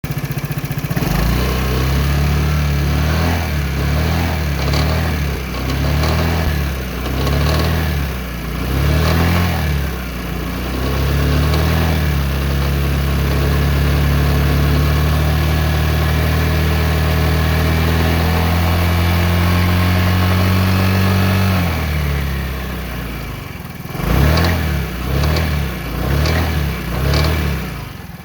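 Vespa 250 i.e. scooter's single-cylinder four-stroke engine is revved in a series of short blips, then held at a steady higher speed for about ten seconds before dropping back, then blipped again four or five times near the end. A rattle comes in at certain engine speeds; the engine shows no apparent loss of power, and the owner does not know the cause.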